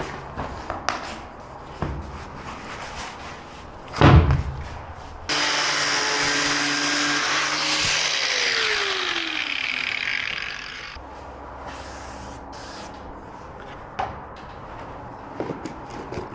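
A handheld power tool cutting through a sewer riser pipe for about five and a half seconds, its pitch sagging partway through. Before it comes a loud knock and some handling clicks.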